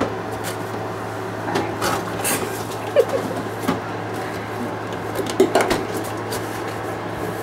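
Pots and pans clanking and knocking as someone rummages through kitchen cookware. The clatters are scattered and irregular over a steady low hum.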